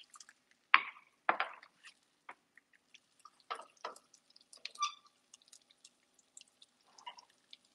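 Light, scattered popping and crackling of chopped peanuts, raisins and green chilli frying in hot peanut oil in a non-stick pan, with two sharper clicks about a second in as the raisins are tipped in from a small bowl.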